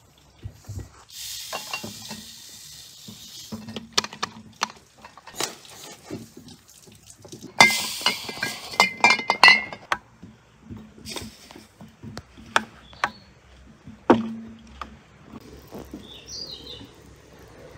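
Granulated sugar poured from a scoop into a glass jar of whole strawberries: two spells of pouring hiss, with many clinks and knocks of the scoop against the glass, one sharper knock ringing briefly late on.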